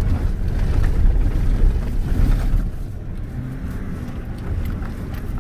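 Truck driving over beach sand: a heavy low rumble for about the first two and a half seconds, then a quieter, steady engine hum.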